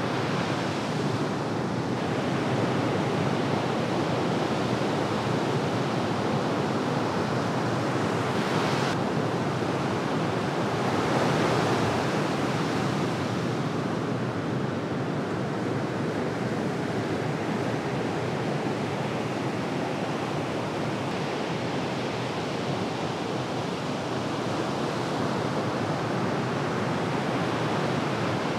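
Ocean surf: waves breaking and washing in a steady rush, swelling slightly about twelve seconds in.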